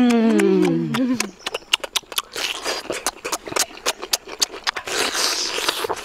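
A drawn-out hummed 'mmm' of enjoyment that falls in pitch and ends about a second in, then close-up chewing of cooked octopus: rapid wet smacking and clicking of lips and mouth.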